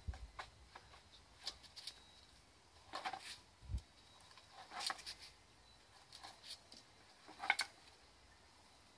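A plastic dustpan and hand brush being nosed, knocked and dragged over stone paving by a dog: irregular faint clicks, rattles and scrapes, with a dull thump a little under four seconds in and the loudest rattle near the end.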